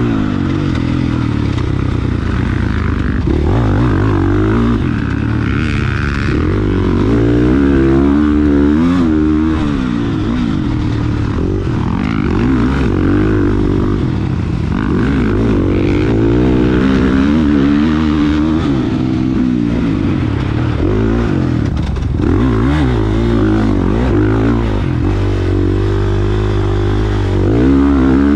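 KTM 450 single-cylinder four-stroke dirt bike engine under way, heard up close from the bike itself, its pitch rising and falling over and over as the throttle is opened and rolled off.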